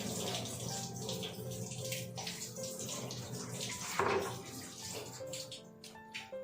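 Running water, thinning out near the end, under soft background music, with one sharp knock about four seconds in.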